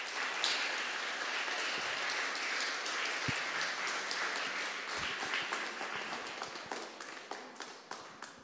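Audience applauding: dense clapping that starts at once and tapers off over the last couple of seconds.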